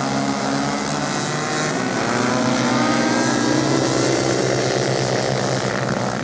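Several racing motorcycles' engines revving hard as the bikes race past on sand, with overlapping engine notes rising and falling as they pass.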